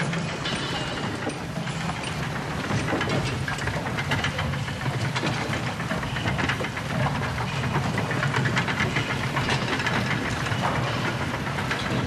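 Sound-effect audio of the Big Thunder Mountain Railroad mine train running: a continuous low rumble with dense rattling and clattering over a steady hiss.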